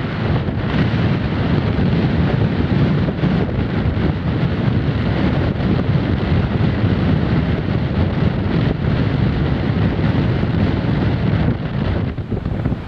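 Force 6 west-northwest wind buffeting the camera's microphone: a loud, steady, dense rumble, easing a little near the end.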